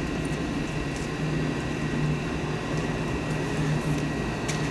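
Steady low mechanical hum with a slight pulsing, and a faint click near the end.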